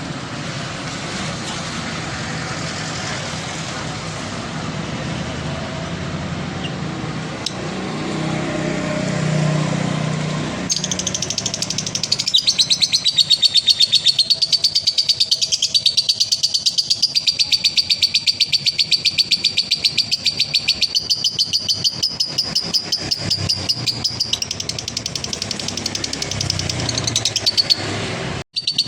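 A steady rushing background noise, then about eleven seconds in a male lovebird starts a long, rapid, high-pitched chattering trill (the 'ngekek panjang' prized in contest lovebirds) that runs on for over fifteen seconds, breaks off briefly near the end, and starts again.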